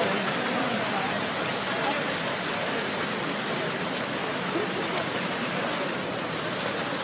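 Steady rush of falling water from the Fontaine Saint-Michel, with the indistinct chatter of many people under it.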